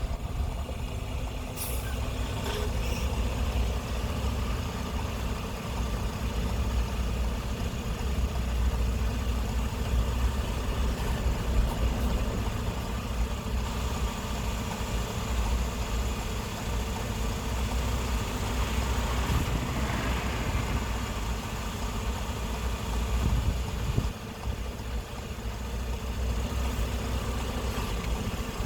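Car cruising on a freeway: steady low road and tyre rumble with engine drone, dipping briefly near the end.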